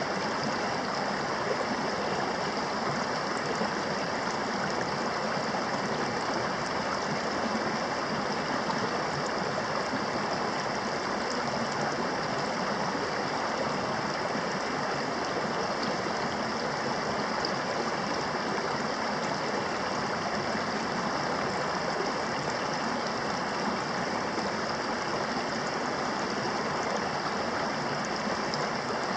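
A small creek flowing steadily over rocks and stones.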